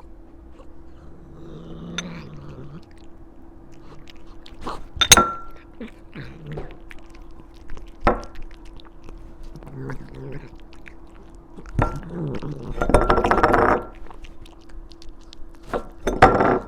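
A cat biting and chewing a strawberry, with scattered sharp clicks and a dense spell of wet crunching near the end. A faint steady hum runs underneath.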